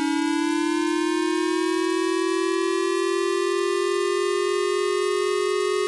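Civil-defense-style siren sounding a tsunami warning: one steady, loud tone slowly rising in pitch, with a slight waver in loudness.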